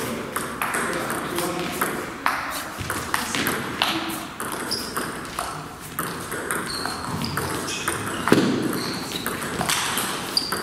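Table tennis rally: the celluloid ball clicks sharply off the rackets and bounces on the table in a quick, irregular run of hits, some with a short high ping. Voices chatter in the background.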